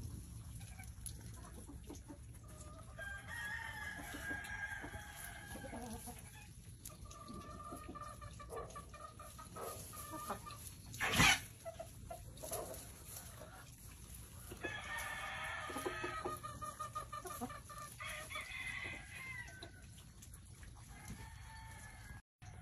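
Roosters crowing, several drawn-out calls one after another across the yard, with a single sharp knock about halfway through and a steady low rumble underneath.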